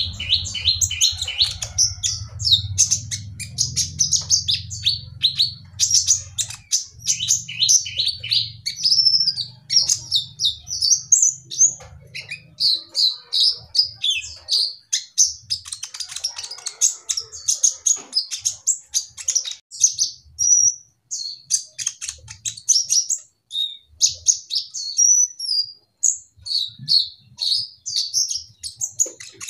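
Male purple-throated sunbird (kolibri ninja) in full song: a fast, continuous run of high, sharp chirping twitters with only brief pauses. A low hum sits underneath for the first dozen seconds.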